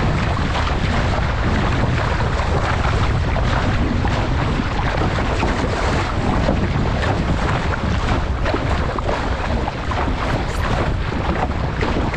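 Wind buffeting the microphone steadily, with water rushing and splashing along the bow of an RS600 sailing dinghy moving fast.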